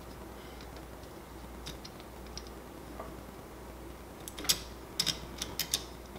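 Light clicks and taps of small screws and spacers being fitted by hand onto a 3D printer's extruder and all-metal hotend heat sink: a few faint ticks, then a quick run of sharper clicks starting about four and a half seconds in.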